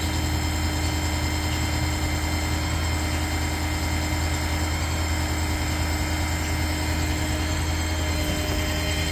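A 2016 Ford F-550's 6.7 Power Stroke V8 diesel running at a steady idle, powering the aerial lift's hydraulics as the bucket is swivelled and tilted.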